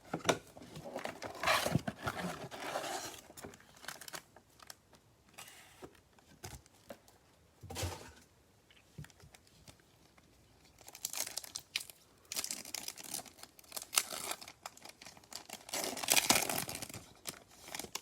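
Foil wrapper of a Bowman baseball card pack being torn open and crinkled, in two spells of rustling with a quieter stretch of small handling clicks in the middle.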